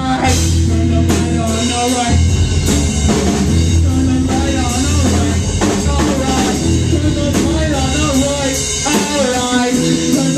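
Live rock band playing: electric guitar, bass guitar and drum kit, with a singer's voice over the music.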